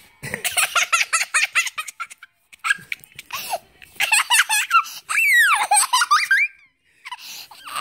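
A young girl laughing hard in rapid runs of giggles, then a long high squeal of laughter that rises and falls near the end.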